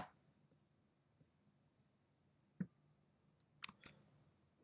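Near silence broken by a few isolated computer keyboard key clicks: one sharp click at the start, a soft thump a little past halfway, and a short cluster of clicks near the end.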